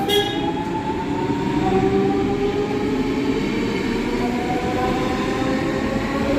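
Electric train pulling away, its traction motors whining in several tones that keep gliding up in pitch as it gathers speed, over a steady rumble of the train.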